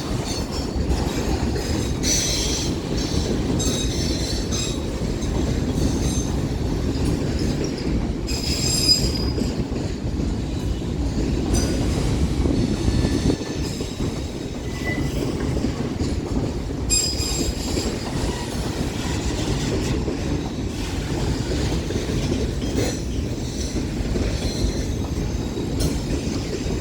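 Freight train cars rolling past close by: a steady rumble of wheels on the rails, with high-pitched wheel squeals coming and going several times, strongest around two, nine and seventeen seconds in.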